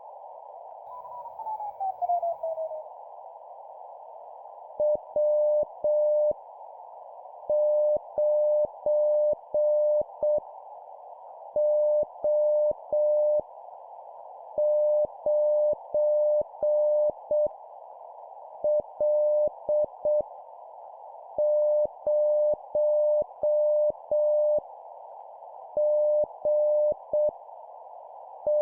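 Morse code (CW) practice signal: a single tone of about 600 Hz keyed in dots and dashes at 7 words per minute, sending random letters and numbers as separate characters with pauses between them, over a steady hiss. Near the start, before the keying begins, a tone slides down in pitch.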